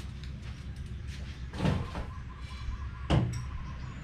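Two metal clanks about a second and a half apart, each followed by a brief ringing, from exhaust slip-on parts being handled and set down, over a steady low hum.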